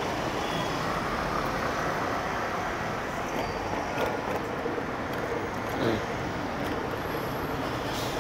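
Steady road traffic noise from passing cars on a city street.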